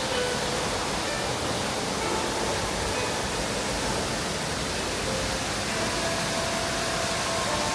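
Waterfall's steady rushing water, with faint sustained tones of soft music on top, growing a little clearer near the end.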